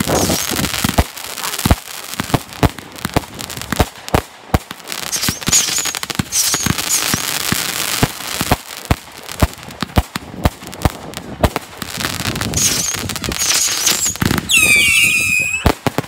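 Fireworks display: a rapid run of bangs and crackles from bursting aerial shells and crackling stars, with short high chirps throughout. Near the end comes a cluster of high whistles sliding down in pitch.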